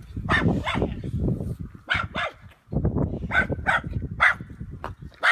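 A dog barking: about ten short, sharp barks, many coming in quick pairs.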